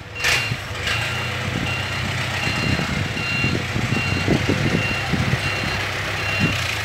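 Dump truck's diesel engine idling while its reversing alarm beeps steadily, a little more than once a second, the sign that the truck is in reverse. A brief hiss comes just after the start.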